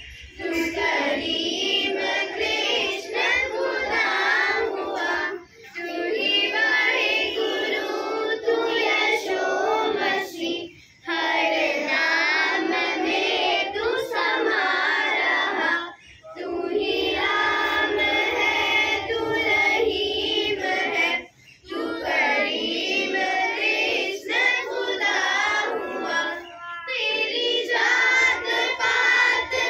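Schoolchildren singing a song together in chorus, in phrases of about five seconds with brief pauses for breath between them.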